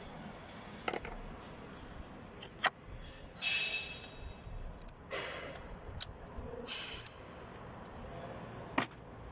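Metal hand tools clinking and scraping against engine parts while the starter motor is being unbolted: a few sharp clicks and three short scraping, ringing clatters.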